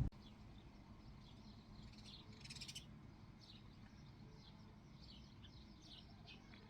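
Faint chirping of small birds: many short, falling calls in quick succession. A brief harsh buzz comes about two and a half seconds in.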